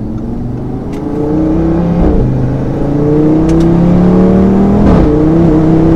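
Audi RS3's turbocharged 2.5-litre five-cylinder engine accelerating, heard from inside the cabin. It climbs in pitch and gets louder, and the pitch drops suddenly twice, about two seconds in and near five seconds, as at gear changes.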